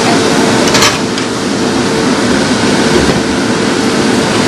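Kitchen range hood extractor fan running steadily with a constant hum, and one brief clink of cookware about a second in.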